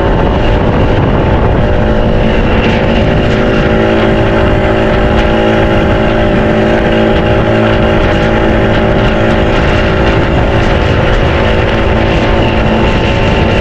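Fishing boat's outboard motor running steadily under way, with a loud rushing noise of wind and water over it.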